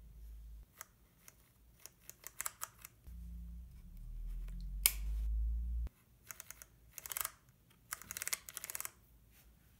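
Controls of a Canon EOS 3 35mm film camera being handled: scattered small plastic clicks, one sharper click about five seconds in, and quick runs of clicks later on, like switches and dials clicking through their stops. A low handling rumble runs under the clicks from about three to six seconds.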